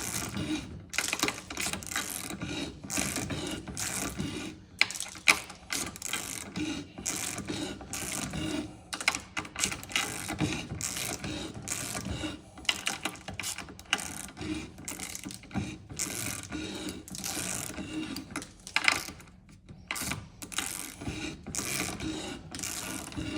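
A 3/8-inch hand ratchet clicking in repeated back-and-forth strokes as it turns a hand-operated cutting tool around a supercharger snout, the cutter taking a light, even metal cut.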